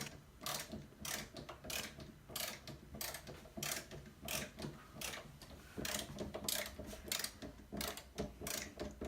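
Snap-On ratcheting screwdriver clicking in short repeated bursts, about one to two a second, as it is worked back and forth to drive a screw home.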